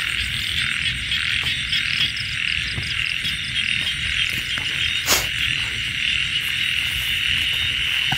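Dense night chorus of frogs and crickets calling steadily, with fine fast trills above the frogs. A single sharp knock about five seconds in.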